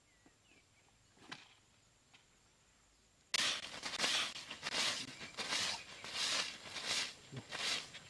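Rhythmic swishing scrapes over sandy ground, about two strokes a second, beginning abruptly a little over three seconds in: a bundle of leaves being swept across the dirt. Before that it is quiet outdoor ambience with a faint click.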